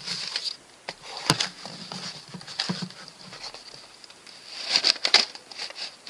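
A folded cardboard holster being squeezed, flexed and rubbed in the hands around a plastic Nerf blaster to loosen its tight fit: dry rustling and scraping, with a sharp tap about a second in and a louder burst of rustling near the end.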